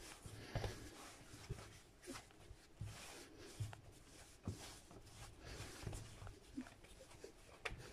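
Hands kneading strudel dough on a floured worktop: faint, irregular soft thuds and rubbing as the dough is pressed and folded against the surface.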